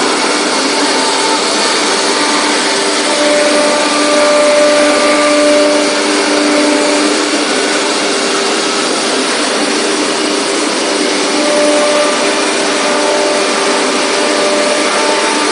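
CNC drilling machining center running: a loud, steady whirring noise with several steady tones that come and go.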